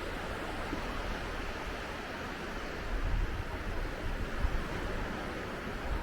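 Sea surf washing on a sandy beach, with wind gusting on the microphone in an uneven low rumble that picks up about halfway through.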